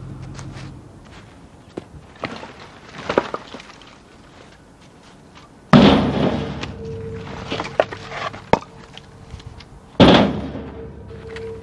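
Chunks of firewood being thrown onto a load: two loud thuds about four seconds apart, with lighter knocks of wood on wood between them.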